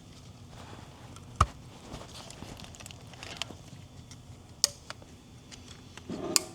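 Scattered sharp metal clicks and taps of hand tools on a steering knuckle as the wheel bearing's C-clip is worked out. The loudest click comes about a second and a half in, with a few more later.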